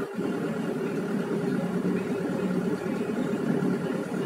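Truck engine running steadily at low speed, heard from inside the cab, with a low hum and rumble as the truck creeps forward in slow traffic.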